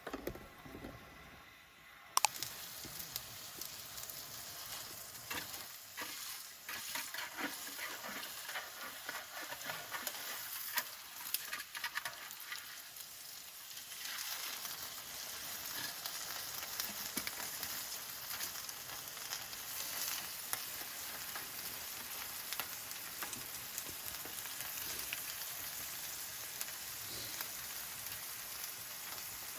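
Food sizzling and spattering as it fries in a hot pan, starting suddenly about two seconds in and settling into a steady crackling hiss.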